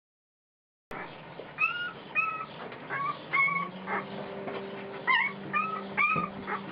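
Deutscher Wachtelhund puppies whimpering and squeaking in a run of short, high-pitched calls that rise and fall, about two a second, starting about a second in. A faint steady hum runs underneath.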